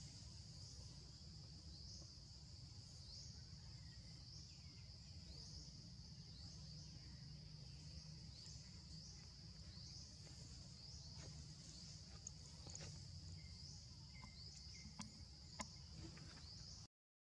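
Faint steady high-pitched insect drone, with a short rising chirp repeating about once a second, over a low background rumble. It cuts out briefly just before the end.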